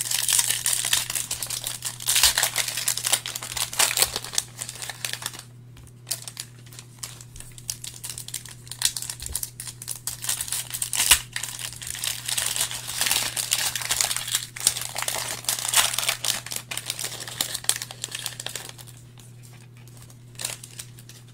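Foil wrappers of Panini Optic basketball trading-card retail packs crinkling and tearing as the packs are ripped open and the cards pulled out, in bursts of crackling that die down near the end.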